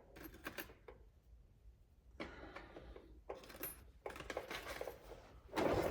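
Small metal screws clinking and rattling as they are handled, in a series of short irregular clicks and rustles, with a louder burst of handling noise near the end.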